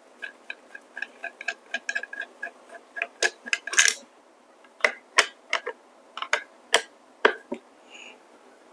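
A magnetic screwdriver clicking and ticking as it turns a screw out of the base of a DF64 coffee grinder. There is a quick run of light ticks for about four seconds, then a few sharper clicks spaced further apart.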